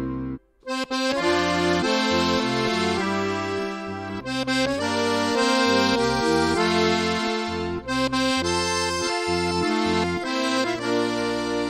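Instrumental background music, a melody of held notes over chords, with a brief break about half a second in before it picks up again.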